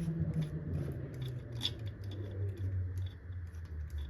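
Irregular small metallic clicks and scrapes as a cylinder head bolt is turned in by hand, over a low steady hum.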